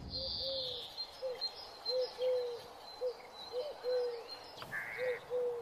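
Birdsong ambience: a dove cooing in repeated soft short-then-longer phrases, with thin high bird chirps above it and a crow cawing near the end.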